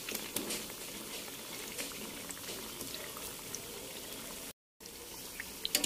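Hot oil bubbling and crackling in a pan as battered fermented-cassava fritters deep-fry, with scattered small pops. The sound drops out for a moment about two-thirds of the way through.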